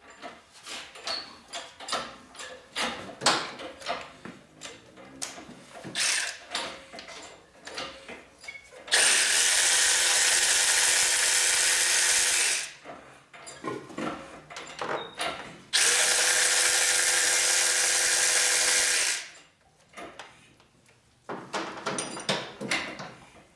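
Workshop tool work: scattered clicks and clanks of tools and parts, then a power tool runs twice, steadily, for about three and a half seconds each time, with scattered clicks in between and after.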